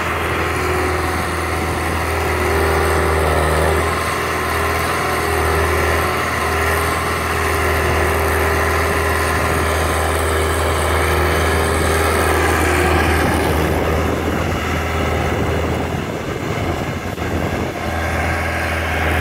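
Engine of a Hin Tech cane loader running steadily while the machine works, with a steady hum above its low note. It eases off briefly near the end.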